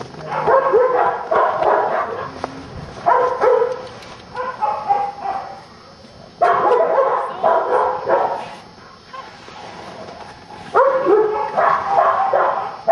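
Lab mix dog barking in four bouts of quick, repeated barks, with short pauses between the bouts.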